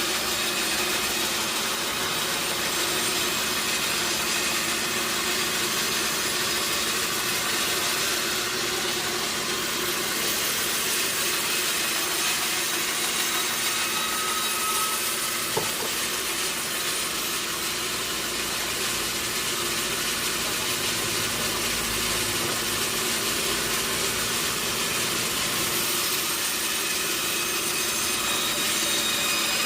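Sawmill saw cutting through timber: a steady, even run of sawing and machinery noise, with a single short click about halfway through.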